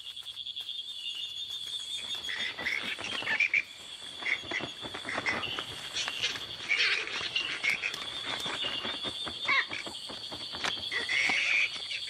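Tropical rainforest night chorus: many frogs calling in short, repeated notes over a steady, high, pulsing insect trill.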